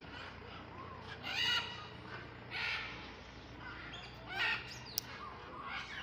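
African grey parrot giving four short, harsh squawks, spaced a second or so apart.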